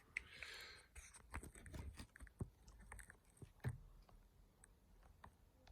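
Faint handling noises: a brief rustle near the start, then scattered small clicks and taps of hands working the small parts of a watchmaker's Jacot tool.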